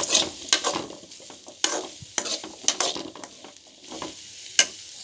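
Chickpeas being stirred in a steel pan, the spoon scraping and knocking against the metal about six times over a low sizzle of frying, the sharpest knock near the end.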